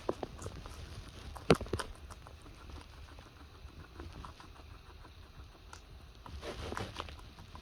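Lettuce being chewed: scattered small crisp crunches, with one sharper, louder snap about a second and a half in and a denser run of crunching near the end.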